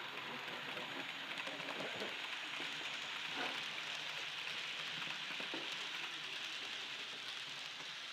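Steady hiss from an HO-scale BB 22200 model electric locomotive's DCC sound decoder, playing through its small onboard speaker.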